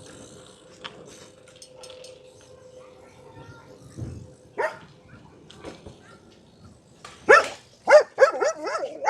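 Puppy barking: a single bark about four and a half seconds in, then a quick run of high-pitched yapping barks in the last two seconds.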